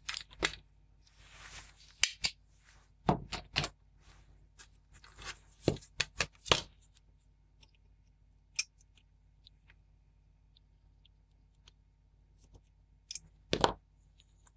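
A desoldering pump fires with a sharp snap at the start, sucking melted solder out of a joint on the underside of a circuit board. Several more clicks and knocks of tool handling follow over the next six seconds, and another loud clack comes near the end.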